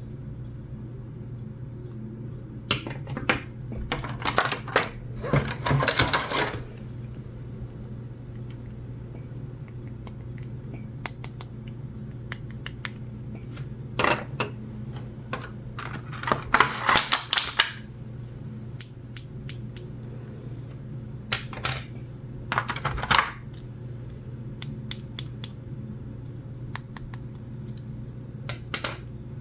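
Small plastic toy pieces being handled and set down: three spells of quick clicking and clattering, a few seconds each, with single clicks between them.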